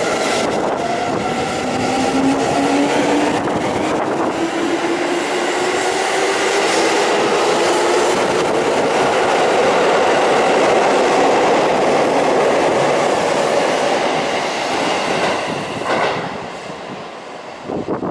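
Seibu Railway L-train electric commuter train pulling out of the station past the platform: its traction motors whine in two tones that climb steadily in pitch as it accelerates, over the dense running noise of the passing cars. The sound drops away near the end.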